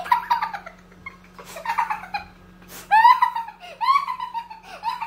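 A man and a woman laughing together in several bursts, turning into high-pitched giggles over the last two seconds.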